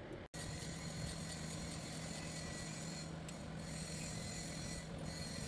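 Hand ratchet wrench clicking as it turns a bolt at the sub flange of a Schramm 450WS drilling rig, with a few scraping strokes of metal on metal and a steady low hum underneath.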